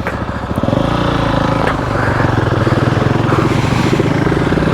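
GasGas ES700's single-cylinder engine running, getting louder about a second in and then holding a steady, pulsing note as the bike rides off.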